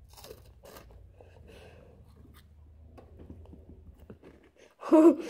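Faint crunching and chewing of two Flamin' Hot Fries corn-and-potato sticks at once. Near the end comes a short, loud, buzzing fart.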